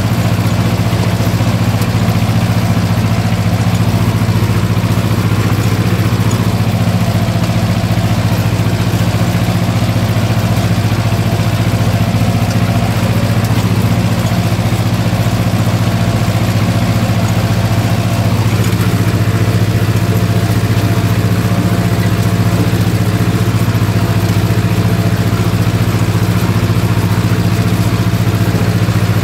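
Ursus C-330 tractor's two-cylinder diesel engine running steadily while pulling a plough and harrow, heard from inside the cab, with no change in revs.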